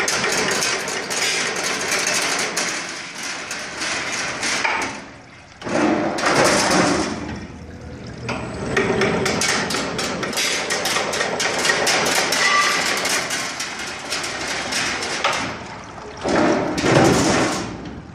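Automatic tube-cutting machine running, with a dense, rapid clatter of metal clicks and knocks over a hissing noise. It swells louder about six seconds in and again near the end.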